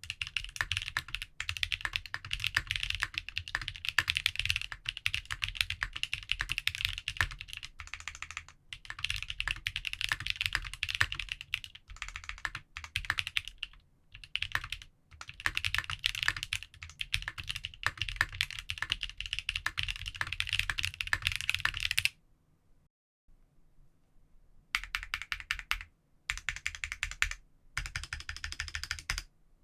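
Leaf 65 custom mechanical keyboard with Krytox 205g0-lubed Salmon switches and GMK keycaps on an aluminium plate, typed on fast and continuously. Near the end the typing stops for about two seconds, then modifier keys are pressed in short runs of separate strokes.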